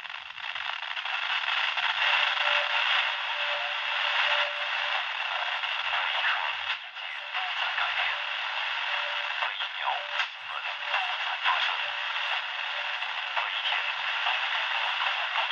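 FM radio static: a steady hiss from a Nokia 130 phone's FM receiver tuned to a weak long-distance station on 91.8 MHz, with the broadcast lost under the noise.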